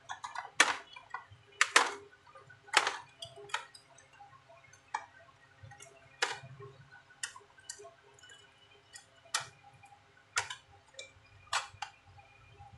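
Sharp, uneven clicks and snaps, about one a second with some in quick pairs, as the glued-in keyboard of an Asus X540U laptop is pried and pressed loose from the plastic top case.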